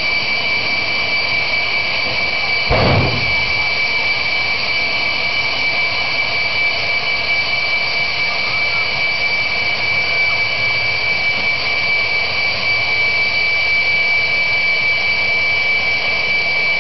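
Jet turbine of a jet-powered ambulance running steadily at the line, a constant high whine. One short, loud burst cuts through it about three seconds in.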